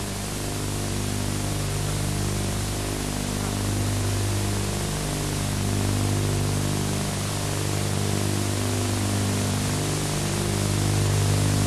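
Steady hiss of an old videotape soundtrack, with low held tones underneath that shift in pitch every second or so: faint background music.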